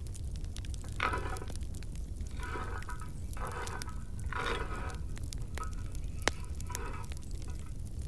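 Chestnuts being stirred with a wooden spoon in a perforated metal roasting pan, in about six short scraping strokes. Under the scraping, the wood fire crackles with sharp pops.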